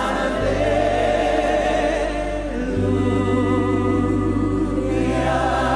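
Gospel worship music: sustained choir or backing-vocal singing with vibrato over steady held keyboard chords that change every couple of seconds.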